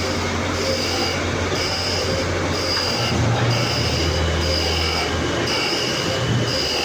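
Steady machine noise with a low hum and a high tone that pulses on and off about once a second.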